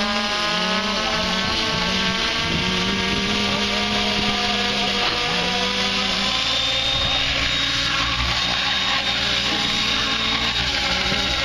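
Compass 7HV electric 700-size RC helicopter running: rotor and motor turning steadily on the ground, a high motor whine setting in about two-thirds of the way through, and the model lifting off near the end.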